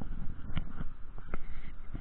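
Handling noise on a hand-held camera's microphone: an uneven low rumble and rustle with a few sharp clicks, about half a second and just over a second in.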